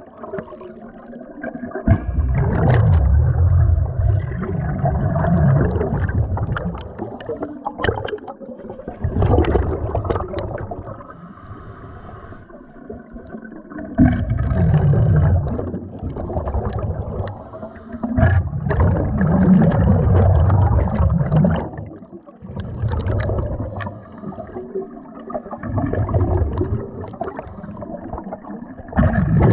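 Underwater bubbling of air escaping from scuba gear, coming in several loud gushes a few seconds long with quieter spells between.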